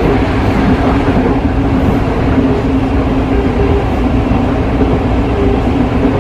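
Tokyo Metro 03 series train running at speed, heard from inside the passenger car: a steady rumble of wheels on rail with an even low hum over it.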